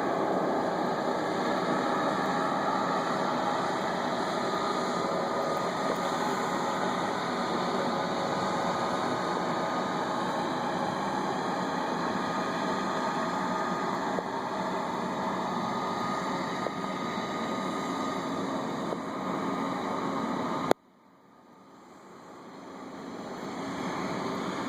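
Kubota compact track loader's diesel engine running steadily under work, with a faint steady whine over it. About twenty seconds in the sound cuts off abruptly, then swells back up over a few seconds.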